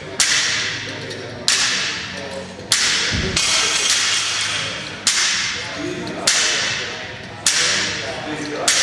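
Sharp whooshing strokes from gym equipment, repeated about every second and a quarter, each dying away over about a second. One low thud about three seconds in.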